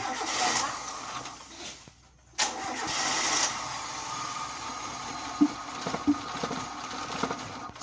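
Car engine cranking on its starter without starting, in two tries: a short one, then about a second's pause and a longer crank of about five seconds. The engine's failure to start is the no-start fault, which later turns out to be a fuel pump grommet problem.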